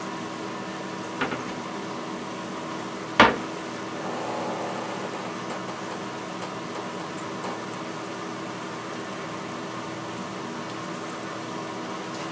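Steady hum of a countertop air fryer oven's fan running, with a sharp knock about three seconds in and a lighter tap or two elsewhere.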